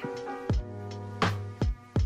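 Background music with held chords over a regular beat.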